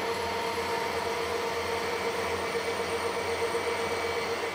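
Harrison 140 lathe running steadily with a constant whine, while a 3/8-inch Morse taper drill in the tailstock cuts into a spinning phosphor bronze bar.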